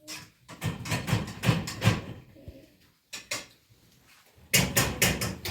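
A series of irregular knocks and clatters: several in the first two seconds, a single one a little past the middle, and a quick cluster near the end.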